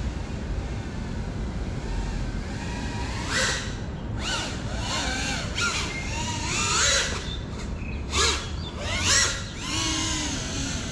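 GEPRC Cinelog 35 FPV cinewhoop's brushless motors whining, the pitch rising and falling in a series of quick throttle bursts over a steady background noise.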